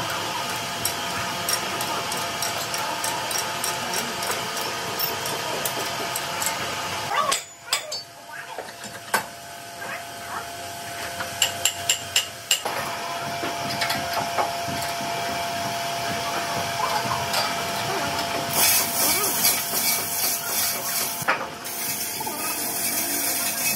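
Metal machine-shop noise: machinery running, with a quick run of sharp metal knocks a little before halfway and a burst of hissing near the end.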